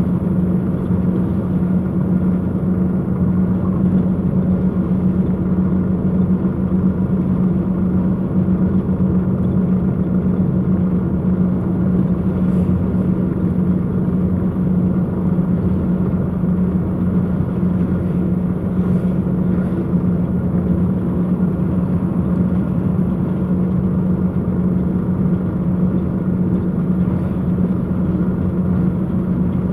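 Steady drone of a truck's diesel engine and road noise inside the cab, cruising at a constant speed: an even low hum that does not rise or fall.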